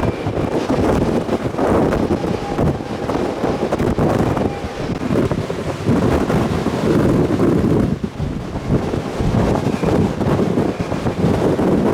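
Strong wind buffeting the microphone, a loud, uneven rumble that rises and falls in gusts.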